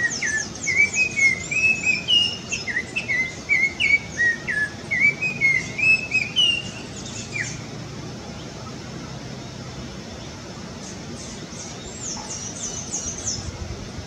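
Oriole singing: a rapid run of whistled, gliding notes mixed with higher chirps for about seven seconds, then a pause and a shorter run of high chirps near the end.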